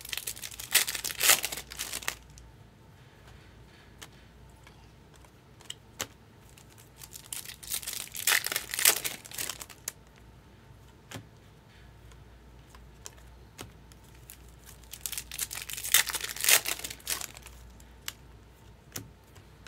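Foil trading-card pack wrappers being torn open and crinkled in three loud rustling bursts, with small clicks of cards being handled between them.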